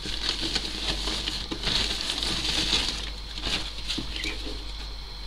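Thin LDPE plastic bag crinkling and rustling as it is unwrapped and pulled back from the unit, with many small crackles throughout.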